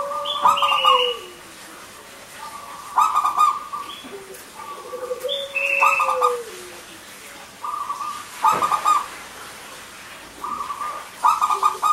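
Zebra dove (perkutut) cooing: a short phrase of quick repeated notes, given about five times at roughly three-second intervals.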